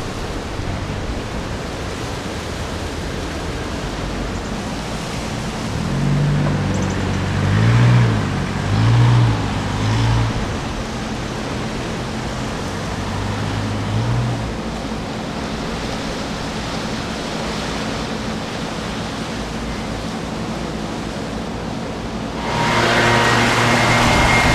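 Steady rushing noise of hurricane wind and rain. A low droning hum wavers up and down in pitch for several seconds midway, and music begins near the end.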